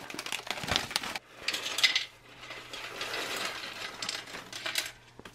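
Foil-lined MRE pretzel pouch crinkling and rustling as it is torn open and handled, then pretzel sticks spilling out and clattering with light clicks onto a stainless steel tray near the end.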